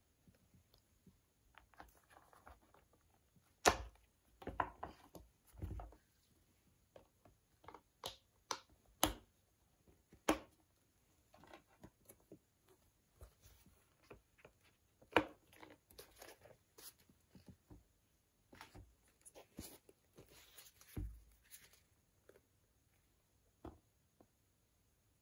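Handling an iPad and its case: irregular light clicks, taps and soft rustles as the tablet is pressed into a green frame with a clear back and the folding cover is moved. There are a few sharper snaps about 4, 9, 10 and 15 seconds in.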